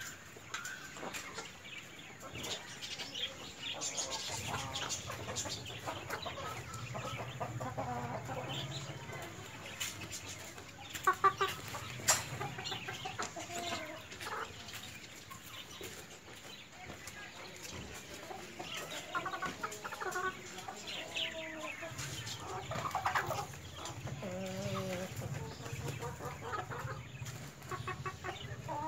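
White Leghorn chickens clucking softly on and off while feeding, with a couple of sharp clicks near the middle.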